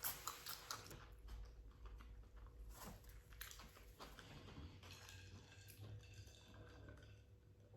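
Close-miked, faint chewing of a mouthful of crunchy bacon cheeseburger: soft wet crunches and mouth clicks, dense at first and thinning out toward the end.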